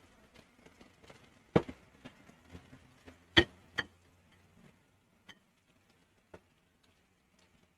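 A few sharp knocks and clicks, the kind made by utensils or food being handled in a kitchen. There are two loud knocks, about a second and a half and three and a half seconds in, with lighter taps around them and a few faint ticks later.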